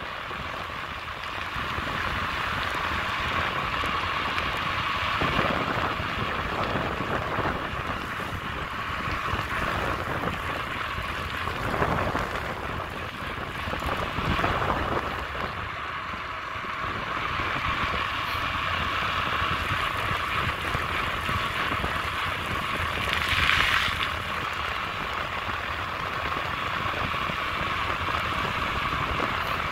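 Steady rushing of wind on the microphone and tyres rolling on asphalt while riding along a paved road, with a few brief swells, the strongest about 23 seconds in.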